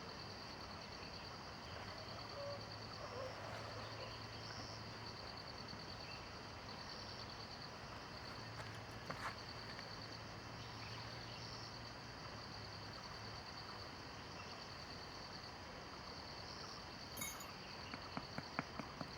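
Insects trilling steadily in a high, pulsing chorus over a soft background hiss. A low hum runs through the middle for several seconds, and a few sharp clicks and taps come near the end.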